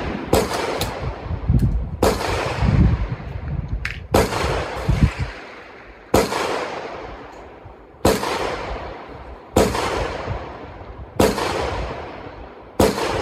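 Rifle shots at a shooting range: eight sharp reports, roughly one every one and a half to two seconds, each with a long echoing tail.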